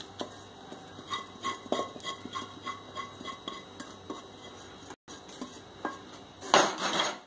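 Metal spoon scraping and clinking against a nonstick pan as a sticky granola mixture is scraped out onto butter paper, with a short ring on some strokes. A louder rustling burst comes near the end.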